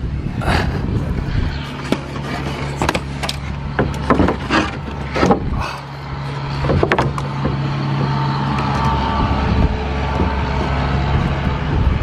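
Pneumatic nail gun firing into a wooden soffit board, a series of sharp snaps in the first half, over a steady low motor hum that stops near the end.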